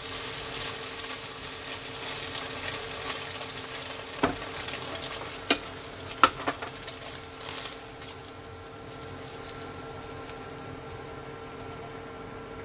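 Scrambled eggs sizzling in a hot nonstick wok while a spatula stirs and scrapes them, with a few sharp knocks of the spatula against the pan between about four and six and a half seconds in. The sizzling dies down after about eight seconds as the eggs are scraped out.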